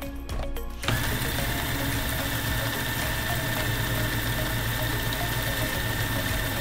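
Electric food processor starting up about a second in and running steadily with a high whine, blending crushed biscuit crumbs with melted butter for a cheesecake base.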